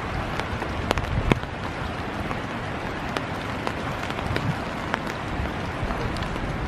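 Steady rain with a patter of sharp raindrop ticks, the two loudest about a second in.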